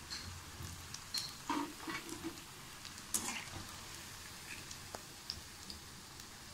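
Cauliflower pakoda pieces sizzling in hot oil in a kadai. A few clinks and scrapes of a steel slotted spoon against the pan come in the first half as the pieces are lifted and moved.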